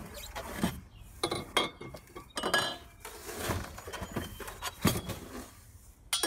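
Metal grill legs clinking and rattling against each other as they are handled and set down on a wooden deck: a string of irregular short knocks, one ringing briefly about two and a half seconds in.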